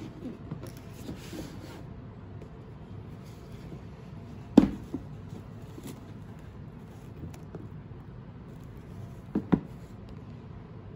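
Hands handling a cardboard shoe box and a pair of sneakers: a brief rustle of the lid coming off near the start, then a sharp knock about halfway, the loudest sound, with a lighter one just after, and a quick double knock near the end.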